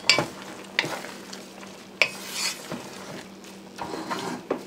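Wooden spoon stirring a simmering chickpea and mushroom curry in a metal pot, scraping through the food and knocking against the pot's side several times at uneven intervals.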